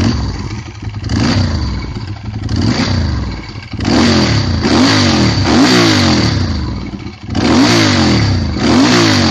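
Ducati 916's 90-degree V-twin engine revved repeatedly with the bike stationary. The pitch rises and falls back with each blip of the throttle, several times in a row.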